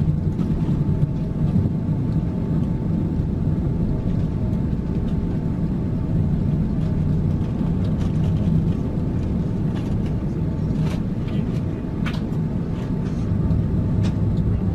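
Steady low cabin rumble inside an Airbus A380 on the ground: the aircraft's air-conditioning and engine hum heard from a window seat over the wing. A few faint clicks come about eleven and twelve seconds in.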